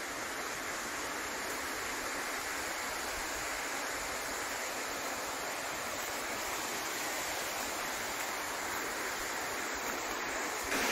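Steady, even rushing noise with no distinct events, shifting abruptly near the end.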